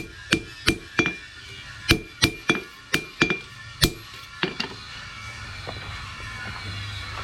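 Hammer striking steel, about a dozen ringing metallic blows at an uneven pace that stop after about four and a half seconds.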